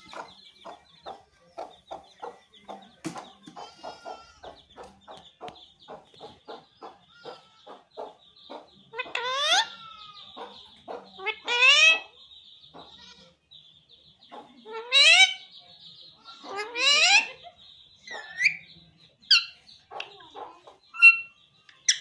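Pet Alexandrine parakeet making a run of quick clucking clicks, about four a second, then four loud rising calls and a few shorter chirps near the end.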